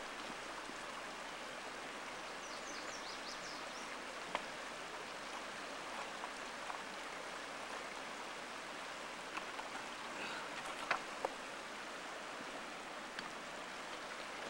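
Steady rush of a shallow creek flowing over rocks, with a few sharp clicks, the loudest about eleven seconds in.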